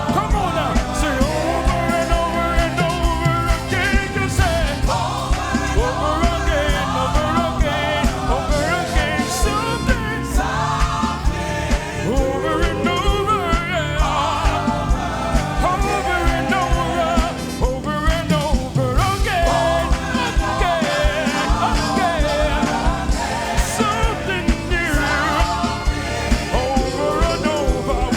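Live gospel praise music: singing voices over a band with a steady, fast beat.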